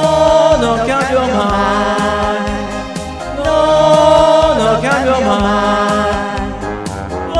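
Two voices singing an Italian pop song into microphones over a karaoke backing track, with two long held notes, one at the start and one about halfway through.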